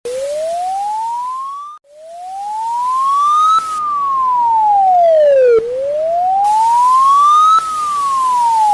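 Emergency alert alarm siren: a single electronic tone wailing slowly up and down in pitch, about two seconds rising and two seconds falling, with a brief break about two seconds in.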